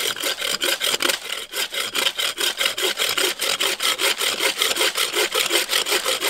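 Hand saw cutting into resin-rich pine fatwood (Kienspan) with quick, even back-and-forth strokes.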